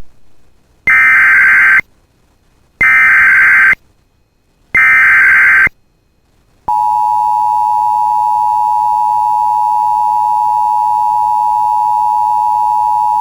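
Emergency Alert System signal heralding a severe thunderstorm warning: three short bursts of buzzing digital header data tones, each just under a second long with silent gaps between, then the steady attention tone starting about seven seconds in.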